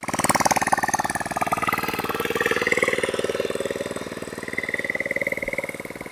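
Old motorcycle engine, rigged to pull water as a pump engine, running with a rapid run of firing pulses, its speed rising and falling slightly.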